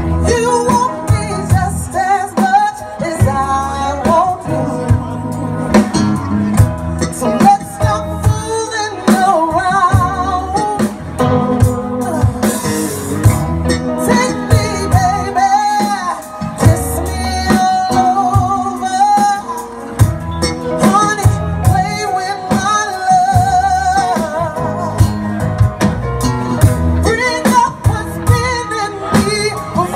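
A live band playing an R&B song: a woman sings lead, with wavering held notes, over electric bass, electric guitars, keyboard and a drum kit keeping a steady beat.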